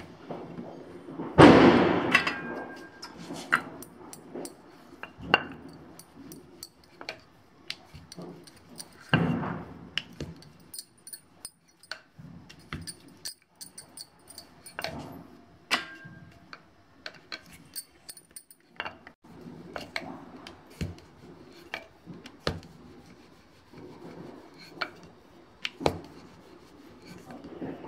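A wooden rolling pin and hands working dough balls on a marble rolling board: scattered light knocks, taps and clinks as the dough is shaped and rolled out thin. Louder brushing noises come about a second and a half in and again around nine seconds.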